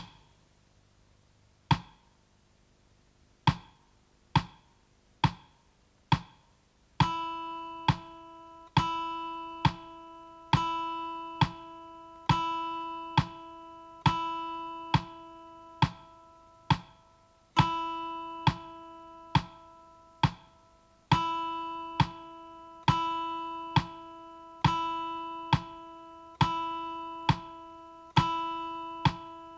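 Metronome ticking steadily, a little more than once a second. From about seven seconds in, a steel-string acoustic guitar's open high E string is picked with a plectrum in time with it, some notes struck on each tick and others left to ring for two ticks, as in a note-duration exercise.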